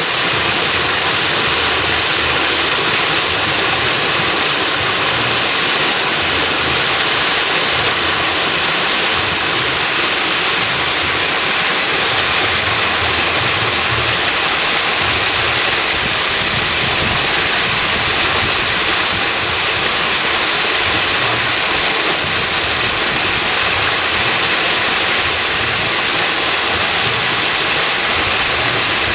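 Artificial waterfall pouring over rocks into a pool: a loud, steady rush of falling and splashing water.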